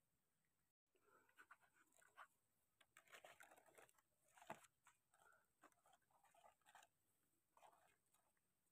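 Very faint scraping and rustling: a small knife scraping soil from the stem bases of wild mushrooms, with one sharper tick about four and a half seconds in.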